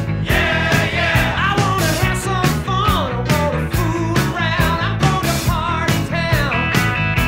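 Rock music with a steady drumbeat.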